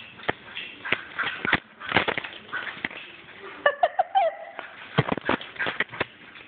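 Irregular knocks and taps, like footsteps and handling on a concrete shop floor, with a bull terrier's short, high, wavering whine about four seconds in.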